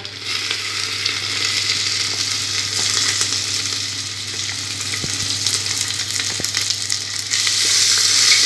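Sliced onions, garlic and ginger sizzling in hot oil in a pressure cooker, a steady crackling hiss with a couple of light knocks in the middle. A little past seven seconds the sizzle grows louder as the onions are stirred with a metal spoon.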